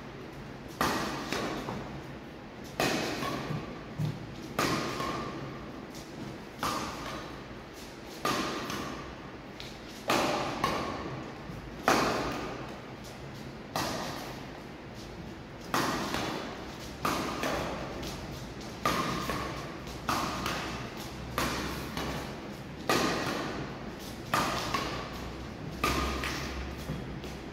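Badminton racket striking shuttlecocks over and over, a sharp hit with a short ring roughly once a second, each echoing through a large hall.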